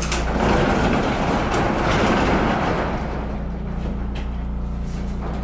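Steel roll-up door pulled down on its rope, the slatted curtain rattling as it unrolls, loudest for the first three seconds and then easing off. A steady low hum runs underneath.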